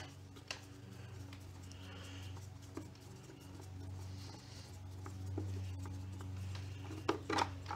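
Faint clicks and taps of a screwdriver working screws out of a scooter's plastic air-filter cover, over a steady low hum, with a few louder knocks near the end.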